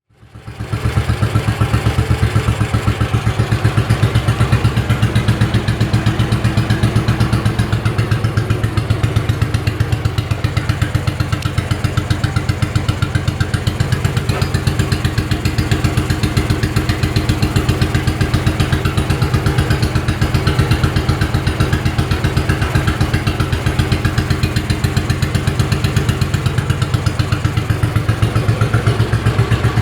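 1953 NSU Max 250's single-cylinder four-stroke engine idling steadily from cold, with an even exhaust beat.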